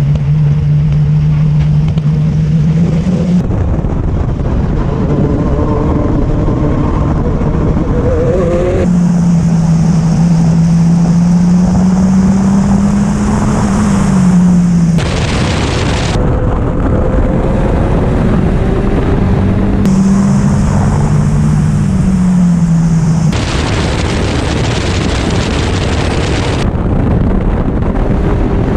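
Hyundai RM19 prototype's 2.0-litre turbocharged four-cylinder race engine running hard, its pitch rising and falling with the throttle. The sound changes abruptly every few seconds.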